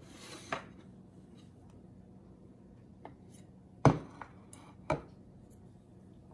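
A few sharp knocks and clicks of things being handled on a hard kitchen counter, with a short hiss at the start. The loudest knock comes about four seconds in and another follows about a second later.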